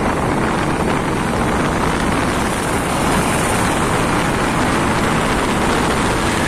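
Steady rush of wind and road noise from riding along on a moving vehicle, with a constant low rumble and no break.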